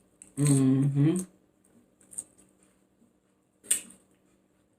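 A woman's drawn-out "mmm" of enjoyment lasting about a second, then eating noises: a faint mouth click and, a little before the end, one short sharp smack.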